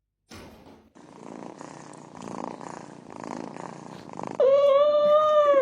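A cat purring, then a loud, drawn-out meow about four seconds in that holds an almost steady pitch for over a second.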